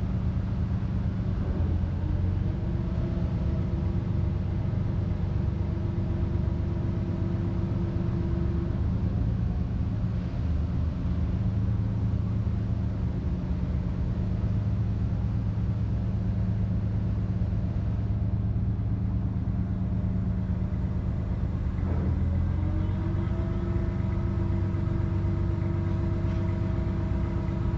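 Fishing boat's engine running steadily as the boat moves slowly through the harbor, with a higher whine that comes in about two seconds in, drops away near nine seconds and returns after about twenty-two seconds.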